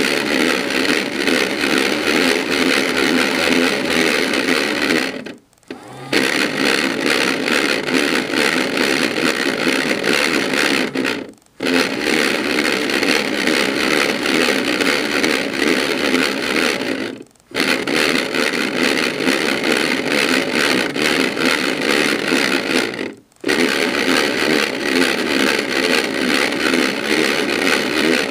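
Battery-powered AEG Electrolux Lavamat toy washing machine running a wash cycle with socks and water inside, its small motor and drum making a loud, rough whirring that cuts out briefly about every six seconds and starts again.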